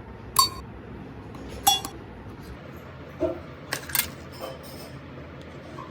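Hard objects knocking together: five sharp clinks, two close together about a second in and a quick pair near the middle, some with a short ring.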